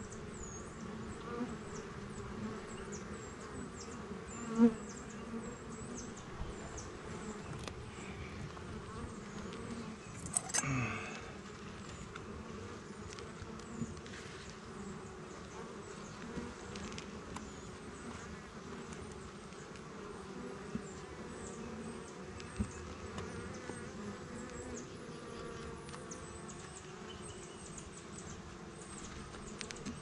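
Honeybees buzzing steadily around an open hive as its frames are lifted out. A sharp knock about four and a half seconds in and a brief scraping rustle near the ten-second mark stand out above the hum.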